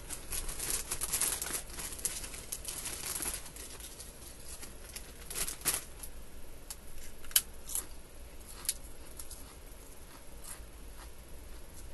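Crinkly plastic potato chip bag being rustled and handled, with dense crackling for the first few seconds and then scattered sharp crinkles.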